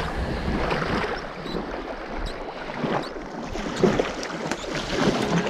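Small waves lapping and splashing against the shore in irregular surges about once a second.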